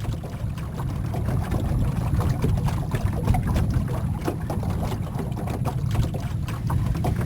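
Boat moving along a canal: a steady low rumble with water splashing and lapping against the hull.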